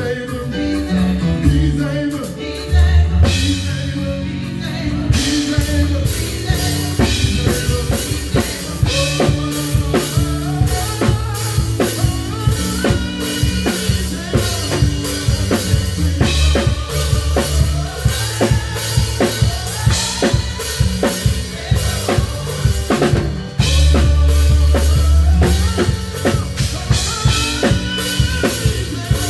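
Live band playing a song, the drum kit up front: a steady kick and snare beat with cymbals over a held bass line.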